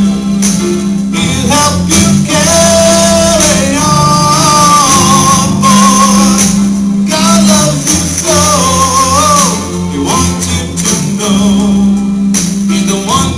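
Recorded Christian song playing: a sung melody over a band accompaniment with a steady beat.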